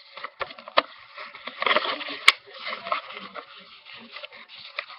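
White paper rustling and crinkling as it is folded, pinched and pressed flat by hand, with scattered small taps and one sharp click a little over two seconds in.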